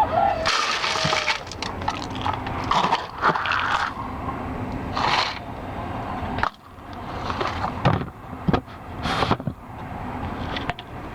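Irregular clattering and sharp knocks, with several short noisy rushes in between.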